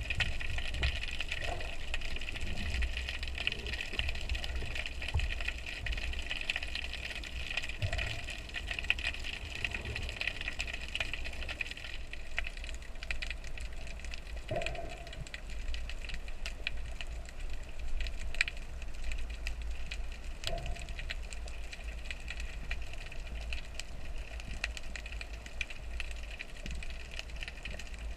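Underwater ambience picked up through an action camera's waterproof housing: a steady low rumble and hiss with scattered faint clicks and a few brief tones.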